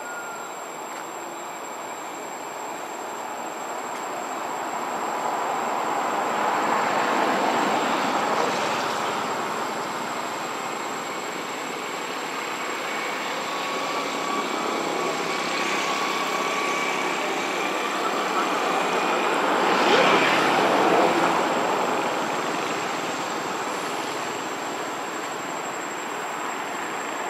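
Rushing noise of passing vehicles, swelling up and fading away twice, with a faint whine in the middle.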